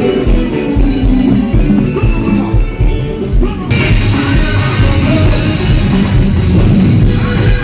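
Live Congolese rumba band playing loudly, electric guitars over a drum kit with a steady beat. About three and a half seconds in, the sound turns brighter and fuller as cymbals and more instruments come in.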